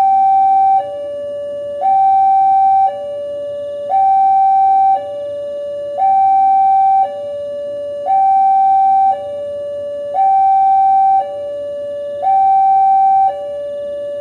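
Railway level-crossing warning alarm sounding: an electronic two-tone, a louder higher tone and a lower tone taking turns about once a second each, the signal that a train is approaching.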